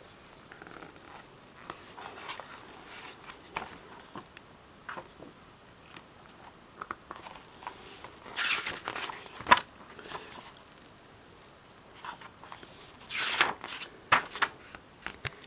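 Pages of a hardcover picture book being turned and the book handled: paper swishes and rustles with small taps and clicks, loudest in two bursts, about halfway through and again near the end.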